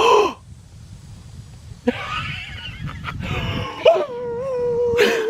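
A man letting out a loud, drawn-out 'Wooo!' whoop in the manner of wrestler Ric Flair, celebrating a good golf shot. It starts about two seconds in, wavers, then is held on one pitch until near the end.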